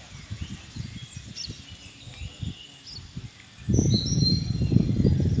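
Birds chirping in short, high calls, over a low rumble of wind on the microphone that grows much louder about two-thirds of the way in.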